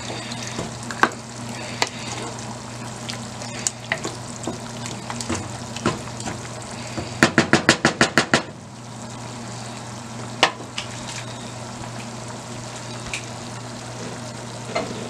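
A wooden spoon stirring a thick chili of ground beef, beans and tomatoes in a nonstick pot on the stove, with a low sizzle from the pot and scattered scrapes and clicks. A little past the middle comes a quick run of about ten knocks, about eight a second. A steady low hum lies underneath.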